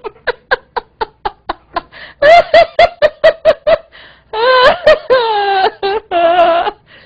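A woman laughing uncontrollably: a string of quick breathy pulses, then a run of pitched 'ha-ha' laughs, and two long drawn-out high laughs in the second half.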